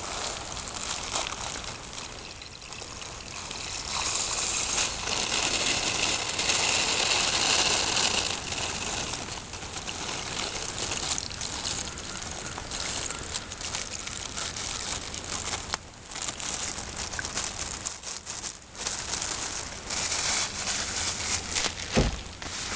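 Rice and hot water in a stainless-steel camp cook pot being poured and stirred together: a rushing, trickling noise that swells and fades. There is a low thump near the end.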